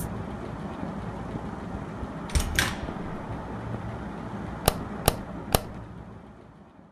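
Footsteps and the handling of a front door: two soft knocks about two and a half seconds in, then three sharp clicks about half a second apart. A steady faint room hiss lies underneath and fades out near the end.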